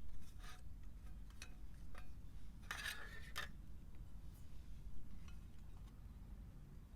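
Light clinks and knocks of metal camp cookware being handled, with a brief louder scrape about three seconds in.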